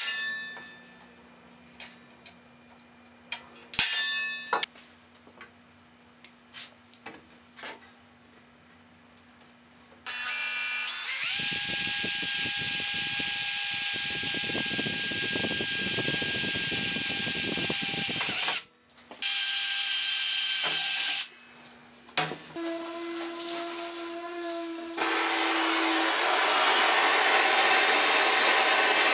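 A few sharp clicks as sheet steel is center-punched. About ten seconds in, an electric drill starts and runs steadily for some eight seconds, boring a hole through the steel, then briefly runs again. Near the end comes the steady hiss of a gas torch's blue flame.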